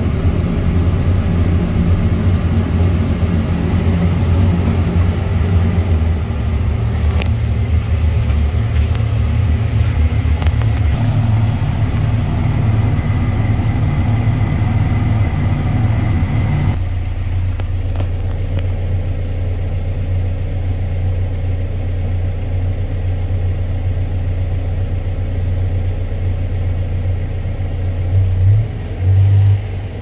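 John Deere 410K backhoe's diesel engine running, heard from inside the cab as a steady low hum. About 17 seconds in, the sound turns duller.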